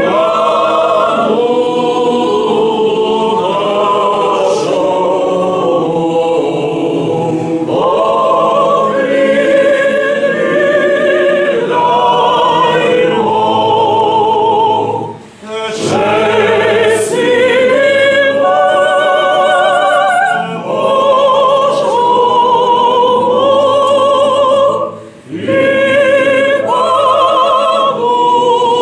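A small group of men's and women's voices singing together with vibrato, in long phrases that break off briefly about 15 and 25 seconds in.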